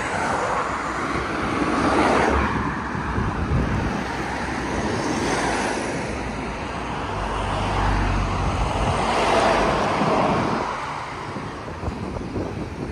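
Road traffic passing along a street: vehicles swell and fade by several times, with a deeper rumble from a heavier vehicle about two-thirds of the way in.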